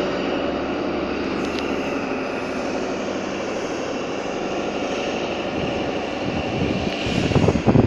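InterCity 125 High Speed Train pulling out, its class 43 diesel power cars running steadily under power. A louder low rumble builds near the end.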